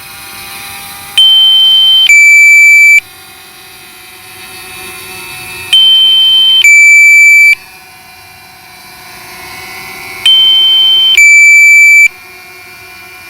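DJI drone controller's low-battery warning alarm: a loud two-tone beep, a high note of about a second dropping to a lower one, three times about every four and a half seconds. Beneath it, the hovering Mavic Mini's propellers hum steadily.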